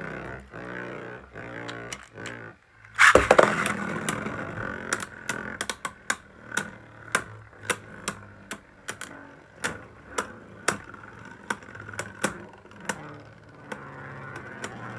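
Plastic-and-metal Beyblade Burst spinning tops whirring on a plastic stadium floor, with a loud burst of scraping about three seconds in, then repeated sharp clacks as the two tops knock into each other while they keep spinning.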